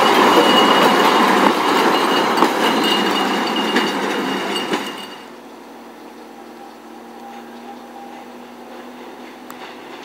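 Yellow DM-31 rail motor car rolling past close by: its engine and wheels on the rails, with a thin high-pitched squeal and occasional clicks. About five seconds in the sound cuts off abruptly to a much quieter steady hum.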